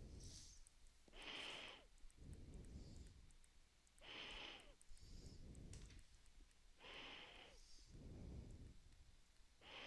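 Faint, slow breathing of a person close to the microphone, about three breaths in and out, one roughly every three seconds.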